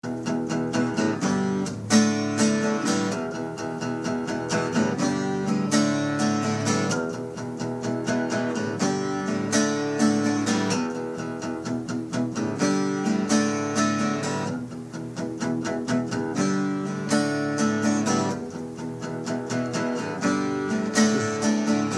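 Outro music led by guitar, cutting in abruptly out of silence.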